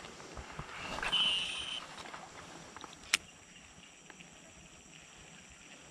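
Zorro Zirius baitcasting reel whirring as its spool pays out line during a cast with a soft frog lure, swelling and fading over about a second, about a second in. A single sharp click follows a little after three seconds.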